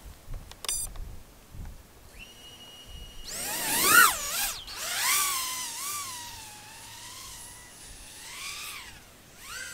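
Small 3-inch FPV racing quad (Lethal Conception Ultra on Emax ECO 1404 6000 Kv motors, 3-inch tri-blade props) taking off. A steady high whine starts about two seconds in. From about three seconds the propeller whine rises and falls in pitch over and over as the throttle is worked in flight, loudest about four seconds in.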